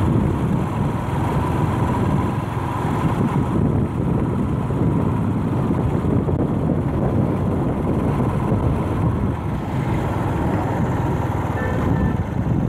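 Riding a motorbike along a city street: the bike's engine and road noise under a steady, rumbling rush of wind on the microphone.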